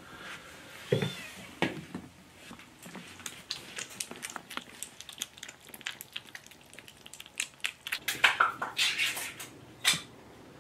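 Kittens eating wet food from a steel bowl: quick clicks and smacks of mouths and tongues against the metal, with a short kitten meow about a second in and louder clatter near the end.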